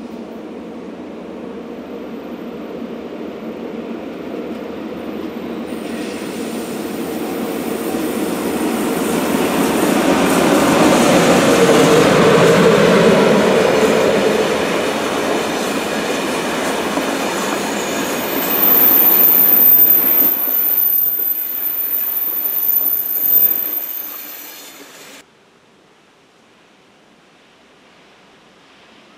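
Electric Railjet passenger train running past, its rumble growing steadily louder and peaking about halfway through. A thin, very high squeal from the wheels on the tight curve comes in near the end and holds for several seconds. The sound then cuts off suddenly.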